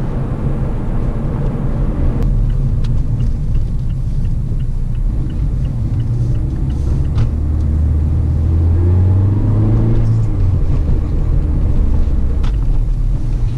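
Cabin noise of a 2017 Mazda MX-5 with its 2.0-litre four-cylinder, on the move: a steady low rumble from the road and the stiff suspension, with a few sharp knocks over bumps. Partway through, the engine note rises for a few seconds, then falls back.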